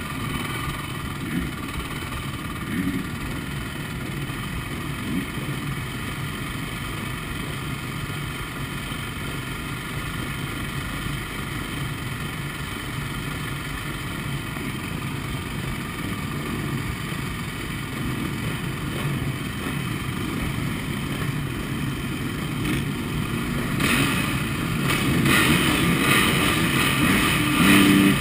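Motocross bike engines idling at the starting gate, waiting for the start. About 24 seconds in the revving picks up and grows louder toward the end, as riders rev ahead of the gate drop.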